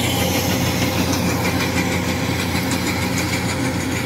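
Kubota DC-70 Plus rice combine harvester running steadily as it cuts through standing rice.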